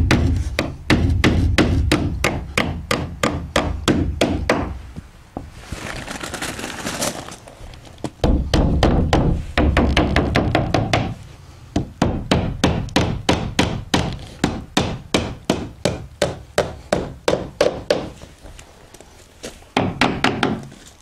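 Hammer driving 2-inch galvanized finishing nails through an LP SmartSide siding panel into the shed's wooden framing: runs of quick, sharp blows, about four or five a second, with short pauses between nails. A brief scraping rustle comes about six seconds in.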